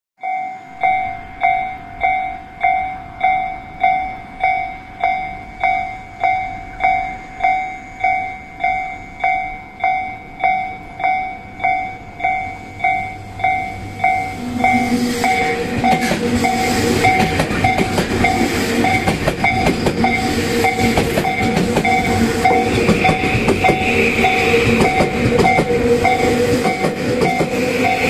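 Railway level-crossing bell ringing its electronic 'kan-kan' clang, just under two strokes a second. About fourteen seconds in, a Tokyu 2020-series electric train passes at speed without stopping. Its wheels and running gear drown the bell, which keeps ringing underneath.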